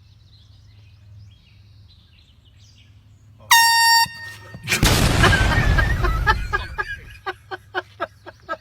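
A short, loud air-horn blast about three and a half seconds in. It is followed by a loud, noisy burst lasting a couple of seconds, then a run of quick pulses, about three a second, that fade.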